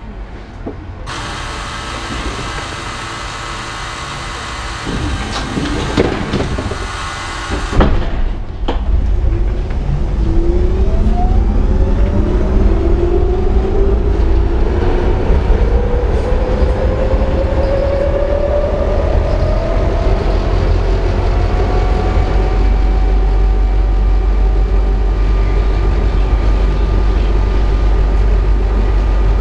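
Inside an ICS articulated tram: a loud hiss for several seconds and a few knocks, then the tram pulls away, its motors whining steadily higher in pitch as it accelerates, over a steady low rumble of the running gear on the rails.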